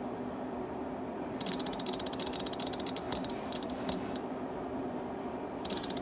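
Jackhammer hammering in short bursts, distant and muffled: a run of rapid strikes about a second and a half in, a few brief taps in the middle, and another run near the end, over a steady low hum.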